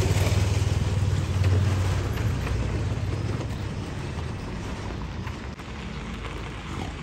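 Mahindra Scorpio SUV's engine running as it drives off, a steady low hum that is loudest for the first two seconds or so and then fades away.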